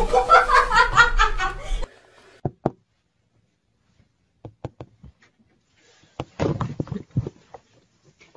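A person laughing hard in quick pulses for about two seconds. After that come scattered short knocks and taps with quiet gaps between them.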